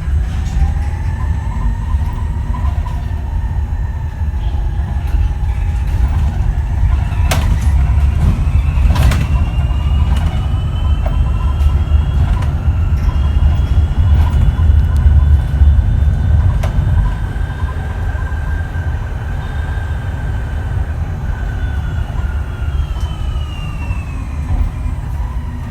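Whine of the Switch Metrodecker EV electric double-decker bus's ZF AxTrax AVE electric drive motors. The whine rises in pitch as the bus accelerates, climbs again, holds steady, and falls away near the end as it slows, over a heavy low rumble of the moving bus. Two sharp knocks come a few seconds apart early on.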